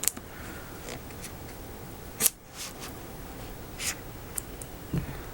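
A screwdriver scraping and cutting at the tape of a cardboard box, a run of scattered scratches and sharp clicks, the loudest a sharp click about two seconds in, with a dull thump near the end.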